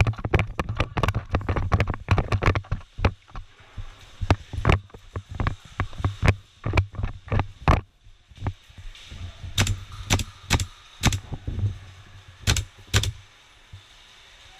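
Airsoft guns firing in close quarters: a fast string of sharp cracks for the first few seconds, then scattered single shots and a few quick pairs of shots.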